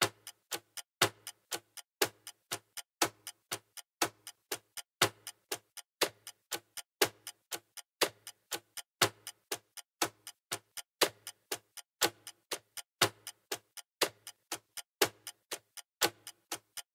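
Ticking-clock sound effect marking a countdown timer: a steady tick about four times a second, with a stronger tick on each second.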